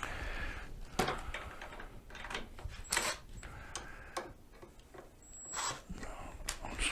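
Hand tools and metal parts clicking and knocking: a socket wrench being worked on a bolt, with a few sharp, separate knocks and some scraping in between.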